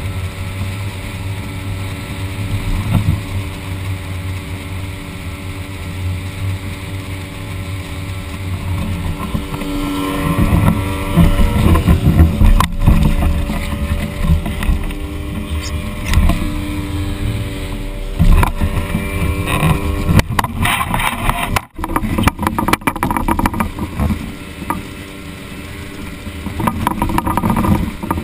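Outboard motor on a flat-bottom tunnel-hull boat running steadily. Water rushes and splashes along the hull as the boat gets up to speed, loudest around the middle. A run of sharp knocks and clatter comes a few seconds after that.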